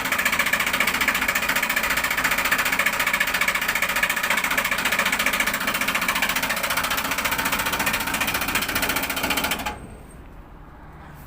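Window air conditioner running with a loud, fast, continuous mechanical rattle from a broken condenser fan blade striking inside the unit. The rattle cuts off suddenly near the end, leaving a faint low hum.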